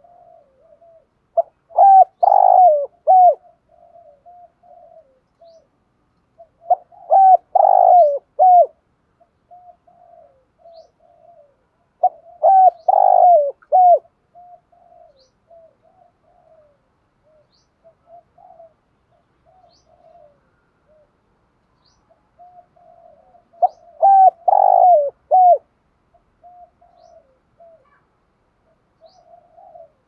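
Spotted dove cooing: four loud phrases of a few notes each, about two seconds long, three at even spacing and a fourth after a longer pause, with soft, quieter cooing in between.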